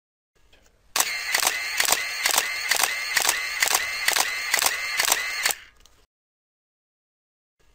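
Camera mechanism running: a steady whirr with a sharp click a little over twice a second for about four and a half seconds, then it stops abruptly.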